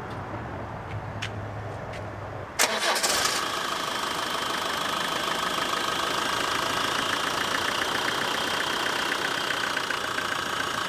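Land Rover Defender engine being cranked by the starter with a low hum, catching suddenly about two and a half seconds in and settling into a steady idle. A steady high-pitched tone runs over the idle, with the old belt tensioner, which has some play, still fitted.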